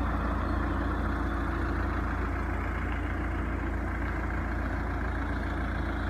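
SUV engine running steadily at low revs as the car creeps forward towing a caravan: an even, low engine hum.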